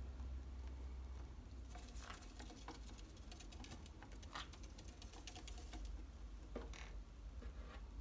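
Faint, scattered clicks and scratches of pet conures moving about on a bookshelf, over a steady low hum.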